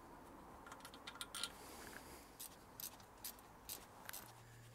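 Faint, scattered clicks and taps of hand tools on metal as the bolts of a car's drive shaft bracket are undone.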